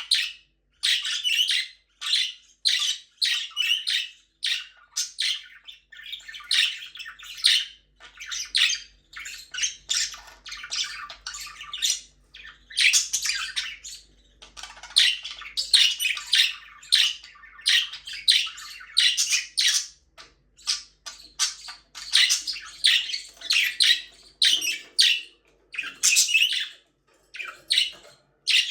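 Budgerigars chirping and chattering in quick, high-pitched runs of calls with short pauses between them.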